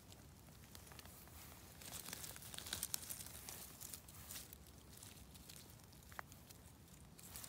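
A hand rustling and crinkling through moss and dry fallen leaves while picking yellowfoot mushrooms, in faint scattered bursts that are busiest about two to three seconds in.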